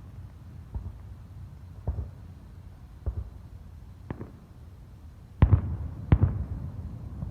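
Fireworks bursting: six sharp booms roughly a second apart, the two about five and six seconds in the loudest, each with a short trailing echo.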